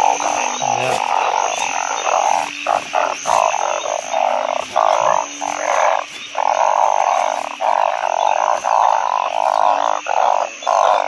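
Dense chorus of frogs calling after heavy rain, among them narrow-mouthed frogs (ueng), a continuous din broken by brief gaps, with short low notes. Over it runs a high steady note that comes and goes in spells of about a second.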